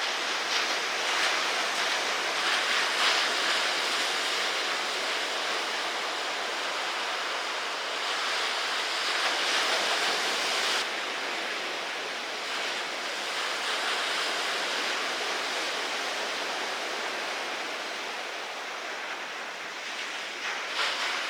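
Ocean surf washing and rushing, with wind on the microphone. It swells louder twice and drops back suddenly about halfway through.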